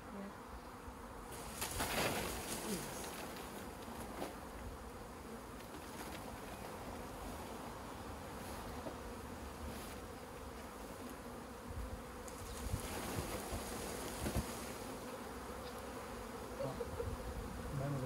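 Swarm of honey bees buzzing in a steady drone of many wings. A brief rustling burst about two seconds in, and another rougher stretch later, come as the branch holding the swarm is shaken and the bees knocked into a box.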